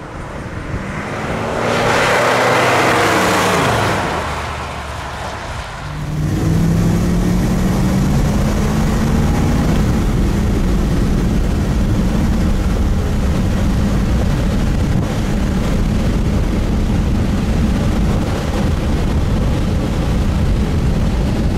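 1965 Chevrolet Impala SS with a 396 cubic-inch V8 driving past at speed: the engine sound swells and its pitch falls as it goes by, loudest two to three seconds in. From about six seconds in, the same V8 drones steadily at cruising speed, heard on board with road and wind noise.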